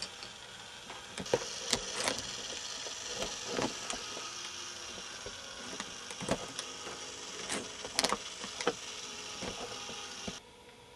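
K'nex ball machine running: its motor and plastic gear-driven lifts whir steadily, and balls click and clatter irregularly along the plastic parts. The running sound drops away suddenly near the end.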